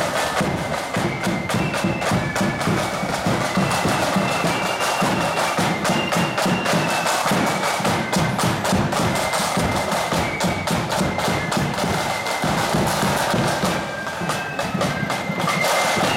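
Marching band playing a high-pitched melody over snare and bass drums with a steady beat.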